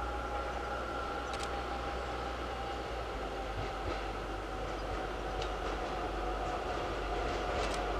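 A ČKD class 705.9 narrow-gauge diesel locomotive approaching. Its engine gives a steady drone with a high whine, growing slightly louder near the end.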